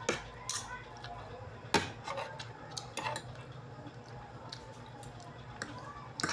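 Metal fork and spoon clinking and scraping against a plate of rice: scattered sharp clinks, the loudest about two seconds in.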